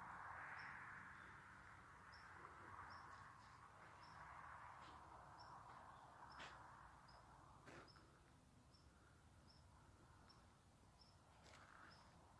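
Near silence outdoors: a faint even hiss with a faint, short, high chirp repeated about once a second, and a few soft footsteps on gravel.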